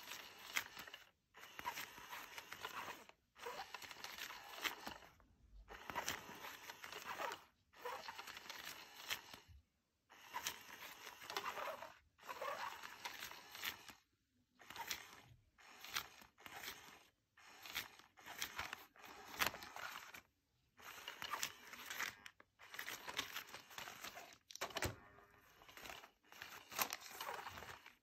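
Electronic cat toy's motorised wand sweeping under its nylon cover: a crinkly rustling that stops and starts every couple of seconds, with short silent pauses between bursts.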